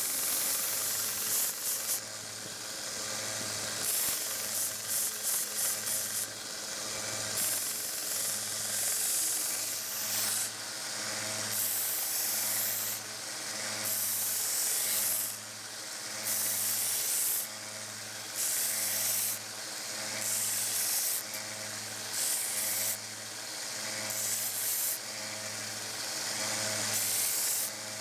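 A 1x30 belt sander with a 120-grit belt grinding steel pliers, running steadily under a motor hum. The grinding hiss comes in repeated passes about a second long as the work is pressed to the belt and lifted off.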